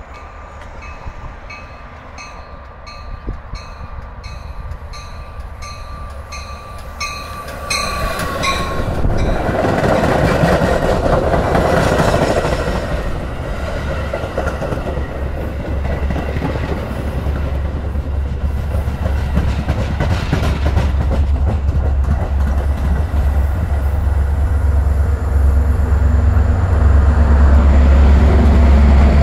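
A Metra commuter train passing close. A bell rings in even strokes for the first several seconds. Then the stainless gallery cars roll by with steady wheel and rail noise and some clickety-clack. Near the end, the rear MP36PH diesel locomotive's EMD 16-645 engine comes alongside as a heavy low rumble that keeps getting louder.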